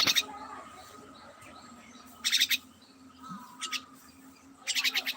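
A small bird chirping in four short bursts, each a quick run of high notes.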